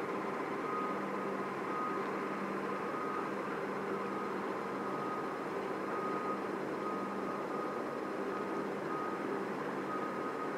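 A vehicle's reversing alarm beeping over and over at a high pitch, above a steady mechanical hum and rumble.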